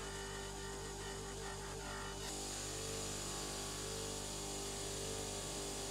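Bench polisher running with a steady motor hum while a steel cube is buffed against its polishing wheel. The sound shifts slightly a little over two seconds in.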